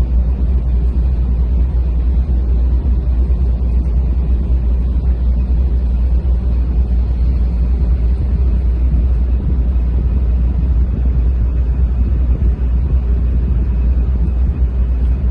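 A ship's engine running steadily, with a loud, constant low drone and no change in speed.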